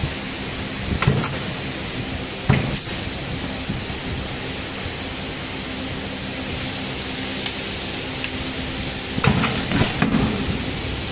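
Metered-dose inhaler aerosol filling machine running with a steady hum and a thin high whine. Its pneumatic heads give short sharp hisses and clunks about a second in, near three seconds, and several in quick succession near the end.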